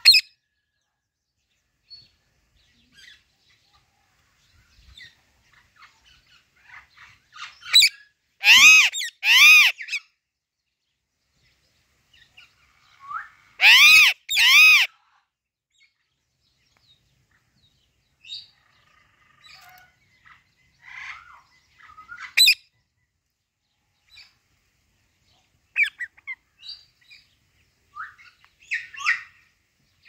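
Female Alexandrine parakeet calling: two pairs of loud squawks, each rising and falling in pitch, about nine and fourteen seconds in, with shorter, quieter chirps and calls scattered between.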